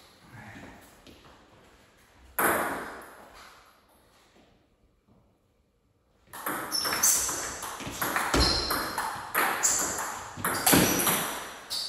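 Table tennis ball being played: a few soft taps and one loud knock about two seconds in, then from about six seconds in a fast rally of sharp clicks as the celluloid-type ball strikes bats and table, several hits a second.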